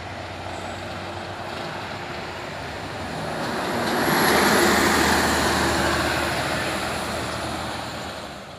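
Simpati Star passenger bus passing close by: its engine and road noise swell to a peak about halfway through, then fade away, over a steady low engine hum.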